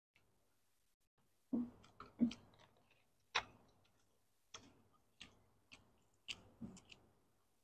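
Close-miked chewing with wet mouth clicks and smacks, about ten of them at an uneven pace, starting about a second and a half in.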